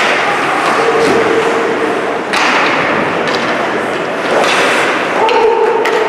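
Ice hockey play in an indoor rink: sharp knocks of sticks and puck against each other and the boards over the noise of skating, with spectators talking and calling out, all echoing in the arena.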